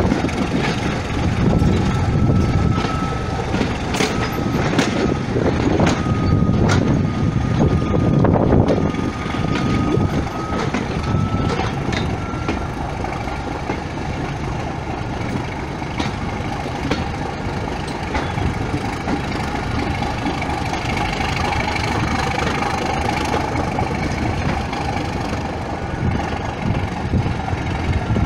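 Heritage passenger train hauled by a Class 31 diesel, heard from a coach window: the coach wheels rumble and click over rail joints, with a steady thin whine. The rumble eases after about nine seconds as the train slows alongside a station platform, and a higher whine comes in later.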